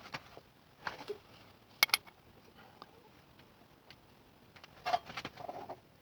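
Scattered light clicks and knocks of objects being handled on a workbench, the loudest two sharp clicks close together about two seconds in, after a power tool has stopped.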